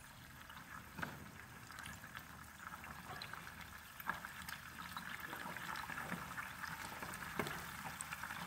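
A shallow layer of water around stuffed bell peppers in a frying pan on a butane camp stove at full heat, sizzling and bubbling as it comes to the boil. It is a steady hiss with many small pops, slowly growing louder.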